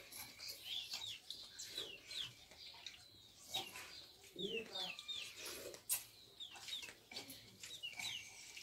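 Chicks peeping: short, high chirps that fall in pitch, repeated over and over.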